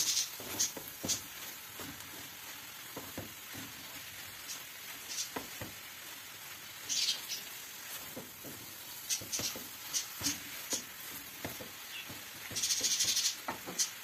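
Wooden spoon stirring chopped herbs frying in a metal pot, with a low sizzle, light knocks of the spoon against the pot, and short scraping rasps about seven seconds in and again near the end.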